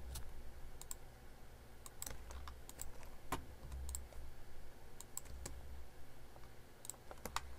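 Irregular computer keyboard keystrokes and mouse clicks, a few at a time with short gaps, over a faint low steady hum.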